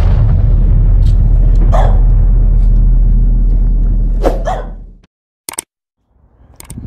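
Intro sound effect: a loud, deep rumble with a dog barking a few times over it, fading out about five seconds in. Then two short clicks.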